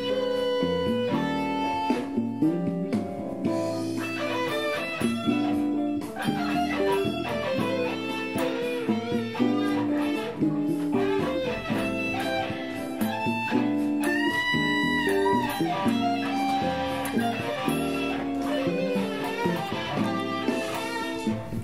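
Electric guitar played through an amplifier over a backing track, picking quick single-note lead lines. About two-thirds of the way through, one note is bent up and held.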